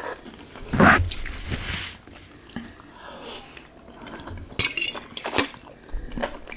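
Metal fork clinking and scraping against a ceramic bowl while noodles are eaten from it, with a few short sharp clinks in the second half. A louder dull thump comes about a second in.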